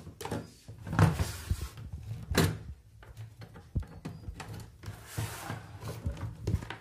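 Handling noise from a TV and its power adapter on a workbench: scattered plastic knocks and clicks, two louder ones about one and two and a half seconds in, with brief rustling.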